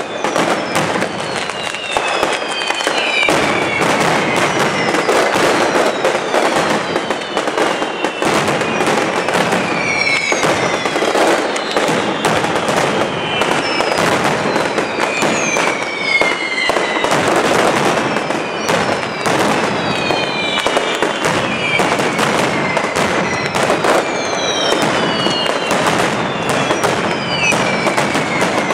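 Mascletà firecrackers by Pirotecnia Caballer going off in a continuous, rapid barrage of sharp bangs from strings hung on overhead cables. Falling whistles cut through the bangs every second or two.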